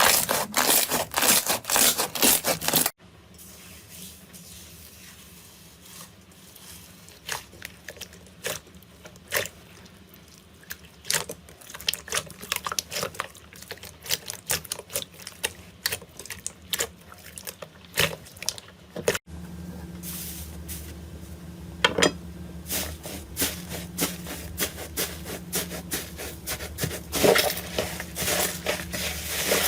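Slime being squished and pressed by hand: many dense, sticky clicks and crackles. It is louder for the first three seconds and again near the end, with sudden cuts about three seconds and nineteen seconds in.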